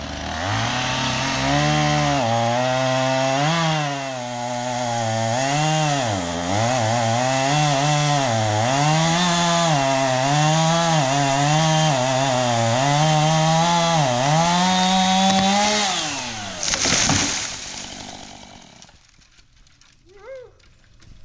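Chainsaw cutting into a dead tree, its engine pitch dipping and recovering again and again as it bogs under load. About sixteen seconds in the engine drops away, followed by a brief loud burst of noise.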